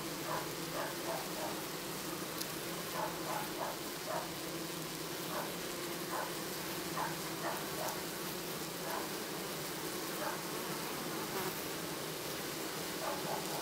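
Honeybees buzzing: a steady low hum of wings, with short higher-pitched sounds scattered irregularly through it.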